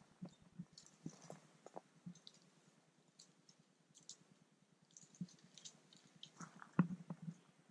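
Faint, scattered clicks and light crackles at irregular intervals, with one sharper click near the end.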